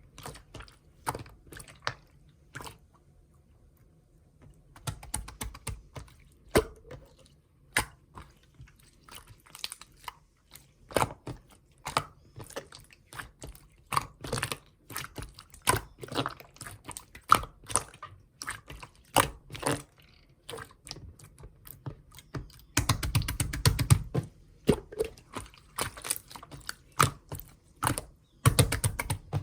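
Slime being squished and pressed by hand, making irregular sticky clicks and pops. There is a brief pause about three seconds in, and bursts of rapid crackling come about 23 seconds in and again near the end.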